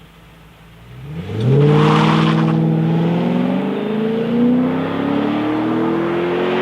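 Ford BA Falcon XR8's V8 engine and exhaust revving: the note rises quickly about a second in, then holds loud with the pitch slowly climbing.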